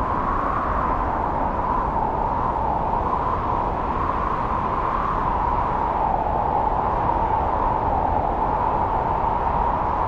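Strong wind of a snowstorm blowing through forest trees: a steady rush with a whistling tone that wavers slowly up and down in pitch.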